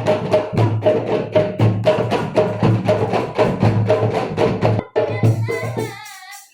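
Marawis ensemble of hand-struck drums playing a fast, steady interlocking rhythm with deep bass-drum pulses. The drumming breaks off about five seconds in, a short closing phrase with a wavering higher sound follows, and then it stops.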